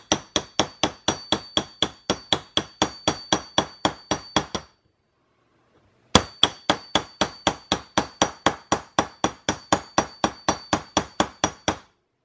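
A small hammer tapping a stainless-steel installation tool in quick, even blows, about four or five a second, driving a firing pin channel liner down into a Glock 19 slide bit by bit. Each tap rings with a high metallic note. The tapping stops for about a second and a half near the middle, then starts again.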